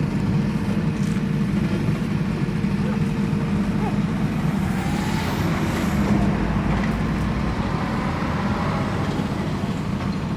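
A heavy vehicle engine running steadily with a low hum.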